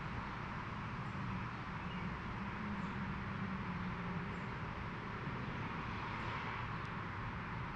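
Steady background ambience: a constant hiss with a low hum beneath it. The hum swells a little in the middle, and a few faint high ticks come every second or two.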